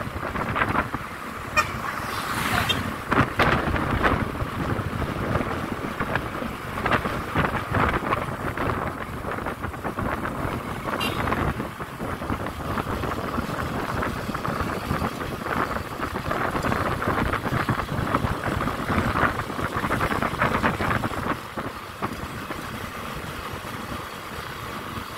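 A vehicle running during a ride, with wind buffeting the microphone.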